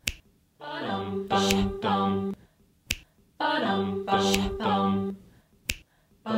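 Wordless a cappella singing in harmony, two short phrases of about three notes each, with a single finger snap before each phrase, three snaps in all, about three seconds apart.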